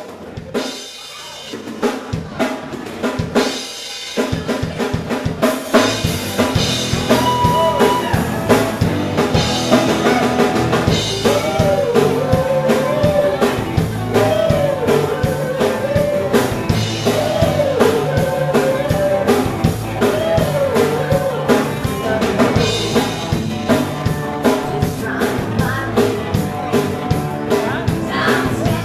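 Live rock band playing: electric guitars, bass and a drum kit, with a woman singing lead. A few scattered drum and guitar hits open it, and the full band comes in about four seconds in with a steady beat.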